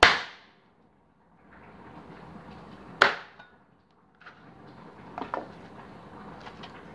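A meat cleaver chopping cooked chicken on a plastic cutting board: two heavy chops, one right at the start and one about three seconds in, then a run of lighter knocks and taps.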